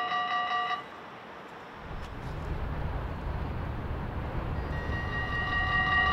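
Level-crossing warning bell ringing in a quick steady pulse, cut off under a second in. A low rumble follows and grows, and near the end the crossing bell starts ringing again as the warning lights come on.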